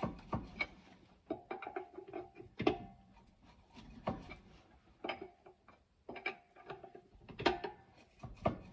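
Metal clinks and rattles of a tire iron working the wheel's lug nuts as they are snugged up, in several bursts of quick clicks with a short metallic ring.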